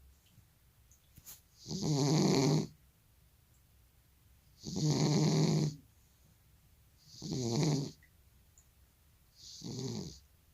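Old cat snoring in its sleep: four snores, each about a second long, a couple of seconds apart.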